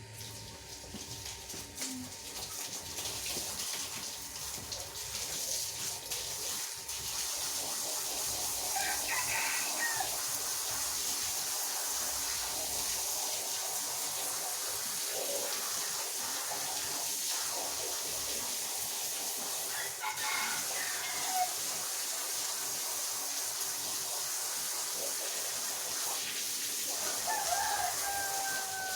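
A rotary polisher machine scrubbing a wet carpet makes a steady hissing noise that builds up over the first several seconds and then holds. A rooster crows three times over it: about a third of the way in, about two-thirds in, and near the end.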